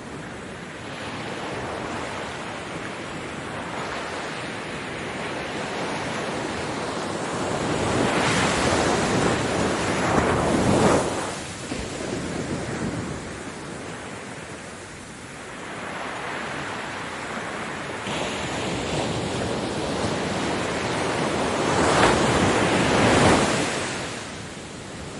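Ocean waves breaking on a beach: a steady wash of surf that swells and crashes twice, about a third of the way in and again near the end, each time falling back to a softer rush.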